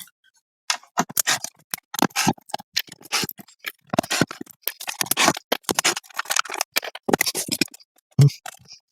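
Irregular small clicks and scrapes of hand work on small screws: screws being backed out and set down on a magnet.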